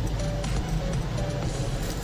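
Background music with a steady bass and a short repeating melodic figure.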